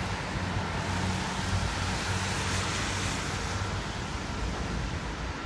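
Steady low engine hum under street traffic noise, with a wash of noise that swells and fades about halfway through, like a vehicle passing.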